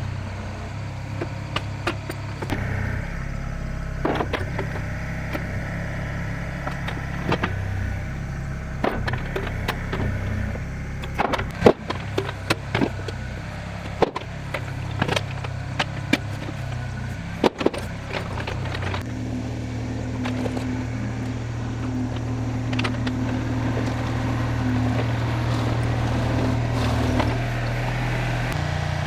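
A diesel engine running steadily, with scattered sharp knocks and clanks, most of them in the middle. About two-thirds through, the engine note changes to a steadier, smoother hum.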